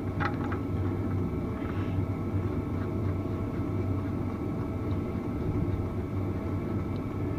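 Steady mechanical hum with an even, unchanging drone, a faint click or two about a quarter second in.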